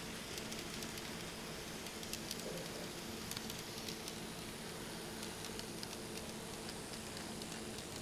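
Kato E233 Chuo Line N-scale model train running along the track: a steady, quiet motor whir with scattered light ticks of the wheels on the rails.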